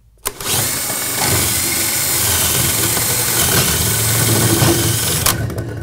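DeWalt 20V cordless drill running at high speed, spinning an adjustable circle cutter that cuts through the drywall ceiling. It starts about a quarter second in, runs steadily for about five seconds and stops suddenly near the end.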